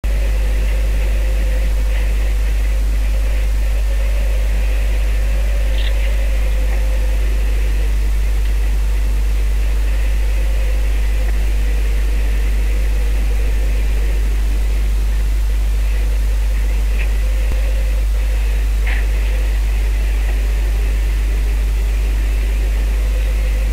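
Steady, loud drone with a deep hum under an even hiss, unchanging throughout, with a few faint clicks.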